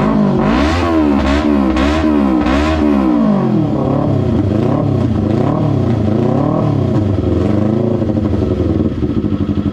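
Kawasaki Ninja 250's parallel-twin engine through an R9 GP SS aftermarket exhaust, blipped in a quick series of throttle revs, then revved more slowly and gently, dropping back to a steady idle near the end.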